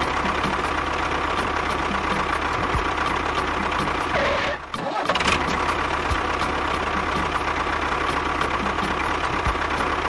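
Miniature model tractor running steadily with a mechanical engine-like sound and a faint regular ticking. It cuts out briefly about halfway through, then carries on.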